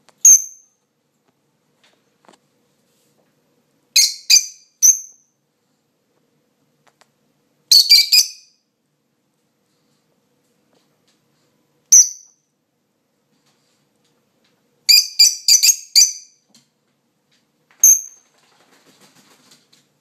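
Peach-faced lovebird giving short, shrill, high-pitched chirps, some single and some in quick runs of three to six, with silent gaps of a few seconds between.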